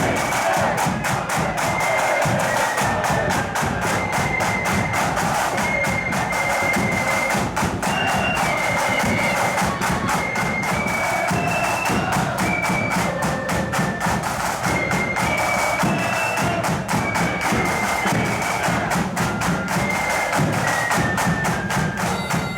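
Marching flute band playing a march: flutes carry a high melody over rapid snare drum strokes and a bass drum beat.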